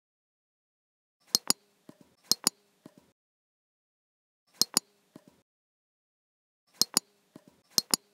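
Computer mouse button clicking: five sharp pairs of clicks in quick succession, some followed by a fainter click, with dead silence in between.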